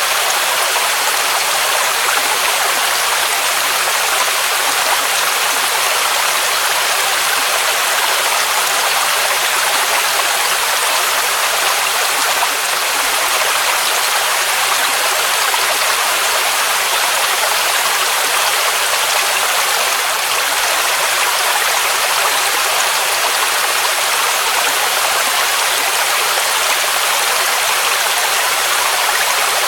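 Waterfall rushing steadily: a constant, even hiss of falling water with little low rumble.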